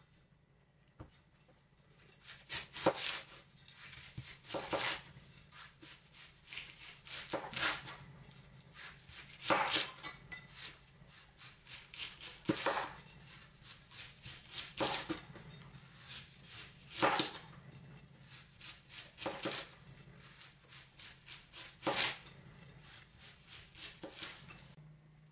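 A steel cleaver shredding cabbage against a wooden cutting board: quick slicing strokes several a second, starting about two seconds in, with a louder knock of the blade on the board every two seconds or so.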